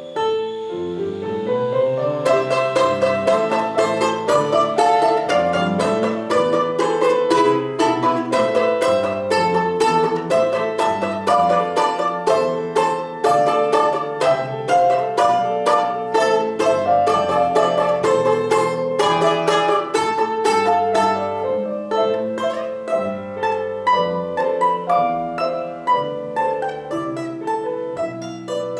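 Instrumental music on a plucked string instrument: quick picked notes in fast, continuous runs over lower sustained notes.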